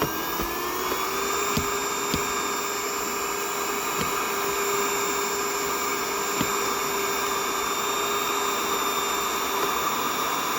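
Handheld mini vacuum cleaner running, a steady whine whose pitch is still rising as the motor spins up in the first second, then holding even. A few faint ticks sound through it.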